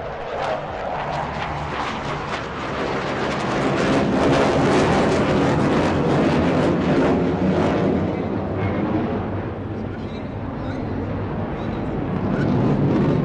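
Jet noise from a HAL Tejas light fighter's single GE F404 turbofan as the aircraft flies past in a display. The sound swells about four seconds in, eases off after about eight seconds and grows again near the end.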